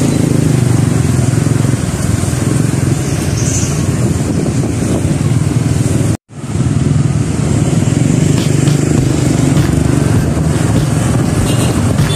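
Motorcycle engine running steadily with road noise, heard while riding in street traffic. The sound breaks off for a moment about six seconds in.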